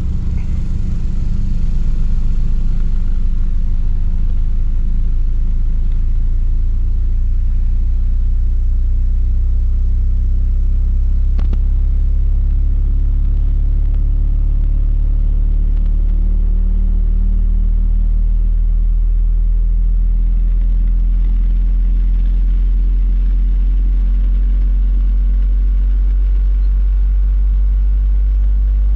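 12-inch Orion XTR124D subwoofer playing a loud, steady deep bass test tone. Extra low buzzing overtones above the tone fade over the second half, leaving mostly the pure low tone.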